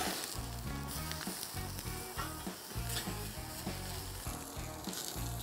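Entrecôte steak sizzling steadily as it sears on the grate of a charcoal kettle grill, directly over glowing coals.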